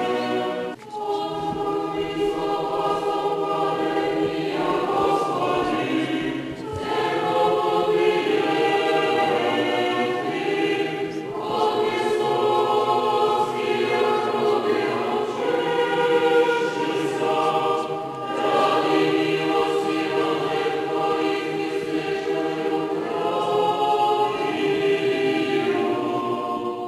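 Orthodox church choir singing liturgical chant a cappella, in long sustained phrases with short breaks between them.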